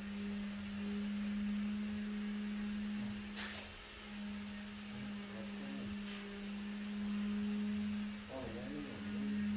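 A steady low hum, one unchanging tone with a fainter overtone above it, with a couple of faint clicks.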